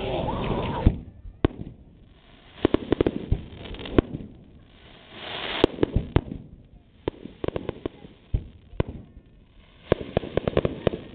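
Fireworks display: aerial shells bursting with sharp bangs, irregularly spaced, and several clusters of rapid crackling pops.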